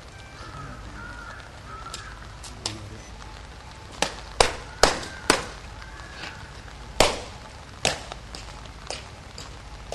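Parade-ground drill: a series of sharp, irregularly spaced stamps and slaps, loudest in a quick cluster about four to five and a half seconds in and again at seven seconds.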